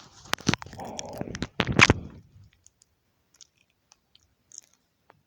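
Close-up crunchy handling noise with several sharp clicks for about two seconds as fine wire and small tools are worked on a phone board, then only faint scattered ticks.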